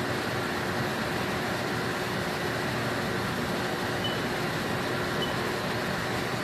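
Steady whirring hum of a CNC sinker EDM machine and its surroundings, with a faint steady low tone under it. Two short, faint high beeps sound about four and five seconds in.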